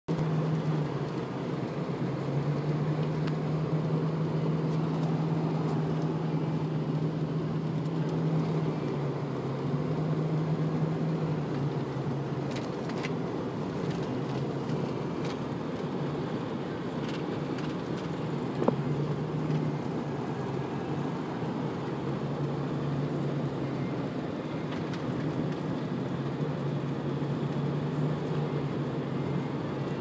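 Vehicle engine running steadily, heard from inside the cab, with a low hum that fades out and comes back several times. A single sharp click about two-thirds of the way through.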